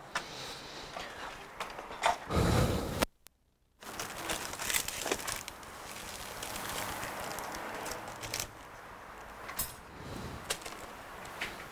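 Hands handling a tablet and tools on a workbench: scattered small clicks and taps, with a heavier thump about two seconds in. The sound cuts out completely for under a second just after the thump.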